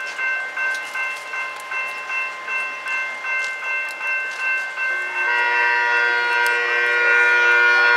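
Nippon Sharyo diesel multiple unit sounding its horn in one long blast that starts about five seconds in. Under it, a warning bell rings about two or three strokes a second.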